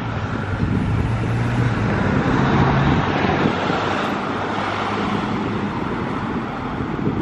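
Cars driving past on a residential street, tyre and engine noise swelling to its loudest about three seconds in and then easing off.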